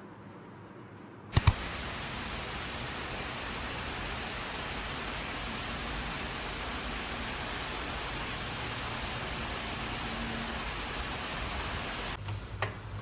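Steady rain, an even hiss that cuts in abruptly about a second in right after two sharp clicks, with a few more clicks near the end.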